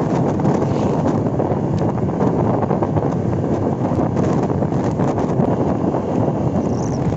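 Steady wind buffeting the microphone while riding a motorcycle at road speed.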